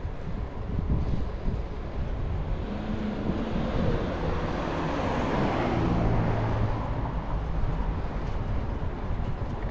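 Wind on the microphone with a low rumble, and a motor vehicle passing by, its engine sound swelling toward the middle and fading again.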